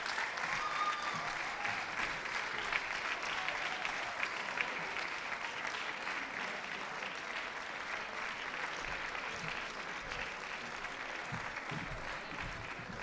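Audience applauding: a dense, steady patter of many hands clapping that slowly dies down toward the end.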